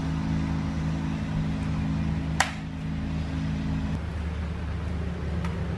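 A single sharp knock of a large knife chopping into a green coconut, about two and a half seconds in, over a steady low hum that changes pitch near the end.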